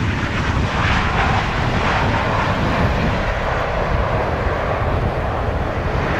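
Jet engines of a Boeing 737 airliner as it rolls out on the runway just after touchdown: a loud, steady rushing noise over a low rumble, getting fuller about a second in.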